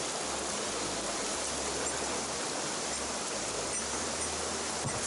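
Steady rush of running water from a mountain stream, an even hiss with no let-up.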